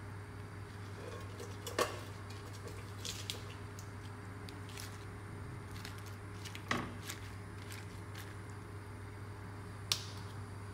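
Wet spinach leaves being handled in a stainless steel pan on the stove: three short, sharp knocks against the pan, about two seconds in, around seven seconds and near the end, over a steady low hum.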